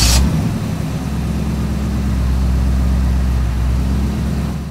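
Car engine running steadily just after starting, a loud, even low hum that fades out near the end.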